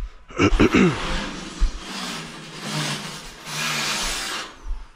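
Electric drill running in several short bursts, with rough noise of the work between them.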